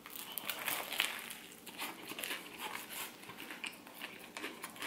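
Biting into and chewing a fried oyster po' boy: the crusty bread roll and fried oysters crunch and crackle in many small, irregular crunches.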